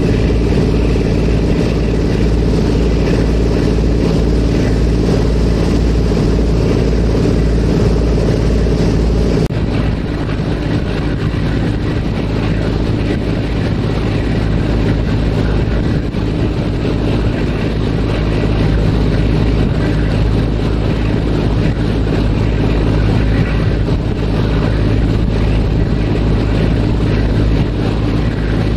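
A ferry's engines droning steadily with a deep hum under a rushing noise. About a third of the way in the sound changes abruptly: the hiss drops away and a lower hum comes up.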